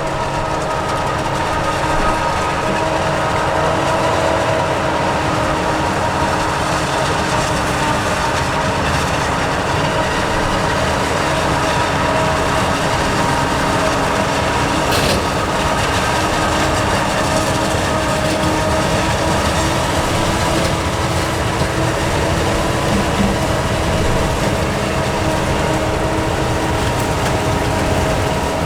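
Heavy farm machinery running steadily under load: a constant diesel engine drone with steady whining tones over it, unchanged throughout.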